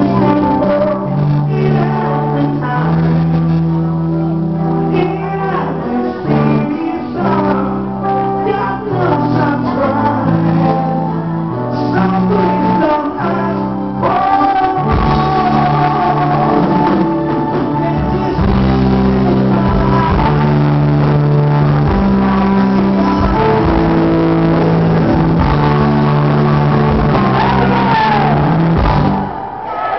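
A live band playing a song, with a singer over guitar and backing, in a large room.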